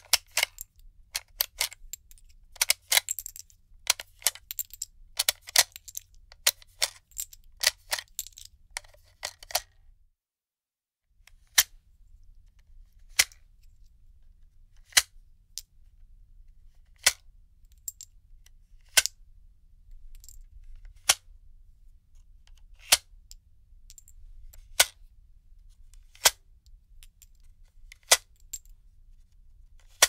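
Cartridges being unloaded from a gun magazine, metal clicking as each round comes out: rapid, irregular clicks for about the first ten seconds, then after a short break single sharp clicks about every two seconds.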